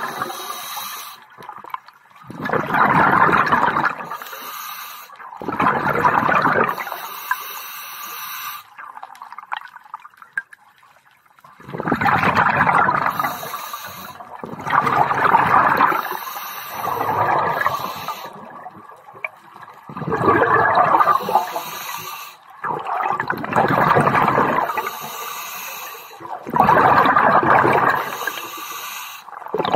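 Scuba diver's regulator exhaust underwater: bursts of exhaled bubbles, each a second or two long, come about every two to three seconds, with a longer pause a little before the middle.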